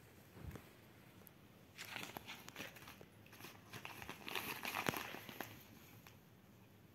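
Paper mailing envelopes crinkling and rustling as a cat paws at them and settles onto them, in bursts for about three and a half seconds from about two seconds in. A soft low thump comes about half a second in.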